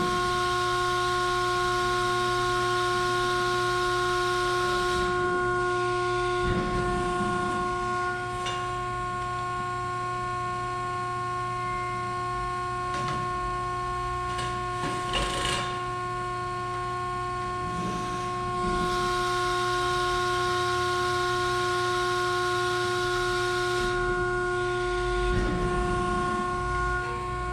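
Hydraulic system of a 190-ton CNC press brake running with a steady whine. A louder rushing hiss joins it for the first few seconds and again about two-thirds of the way in as the ram cycles through bends. A few knocks of sheet steel being handled at the dies come in between.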